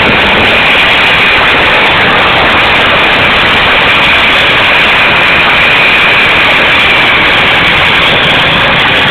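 Homemade gas turbine jet engine running steadily and loud: a continuous rushing roar with a high, steady turbine whine.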